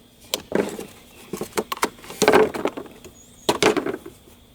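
Irregular sharp knocks and clatter from a freshly jigsaw-cut piece being handled and fitted into place, with heavier thuds about half a second in, just over two seconds in, and around three and a half seconds in.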